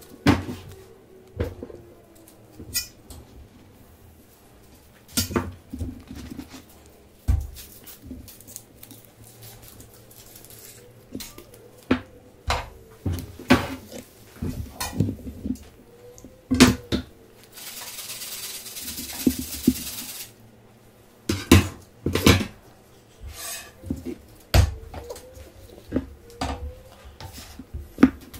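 Metal spatulas clattering against a crepe griddle and tabletop: scattered sharp knocks and clinks, with a steady hiss lasting about two seconds a little past the middle.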